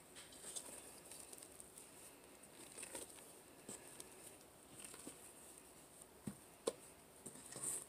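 Faint, soft scraping and squishing of a silicone spatula folding whipped topping into a thick creamy mixture in a stainless steel mixing bowl, with two light ticks of the spatula or bowl a little after six seconds in.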